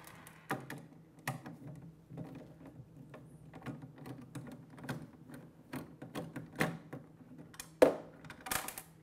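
Irregular small clicks and taps as the inner cover is worked loose inside a Zega Pro aluminium topcase, with a sharper knock near 8 seconds and a brief scraping rattle just after it.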